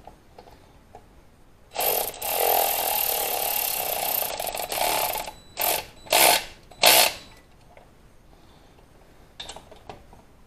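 Ratchet running a cylinder head bolt down for about three seconds, then three short bursts as the bolt is snugged, just tight, ahead of final torquing.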